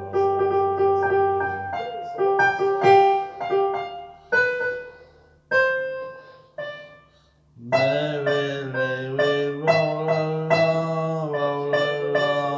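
Keyboard instrument playing an instrumental passage with no singing: held chords, then a sparse stretch of single notes that die away, then fuller sustained chords again from just past the middle.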